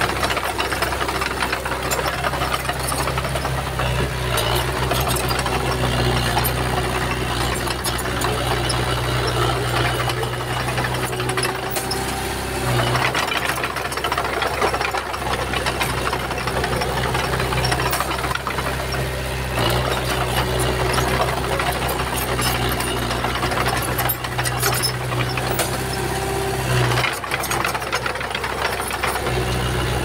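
Komatsu bulldozer's diesel engine running steadily under working load, with frequent metallic clanks and rattles over the engine drone. The engine note shifts briefly a few times, around a third of the way in, past the middle and near the end.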